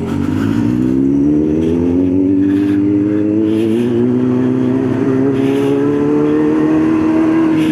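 Kawasaki Z900 inline-four engine pulling through its loud exhaust, the note climbing slowly and evenly as the bike accelerates, with no gear change, levelling off near the end.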